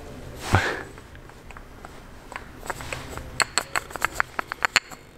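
A quick, irregular run of small sharp clicks for about two and a half seconds, made by a sailboat's masthead sheave turning and knocking on its bolt as it is handled.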